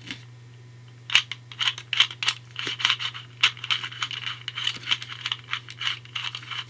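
Rapid plastic clicking of a ShengShou 2x2 speed cube being turned by hand. It starts about a second in and continues as quick turns, several clicks a second.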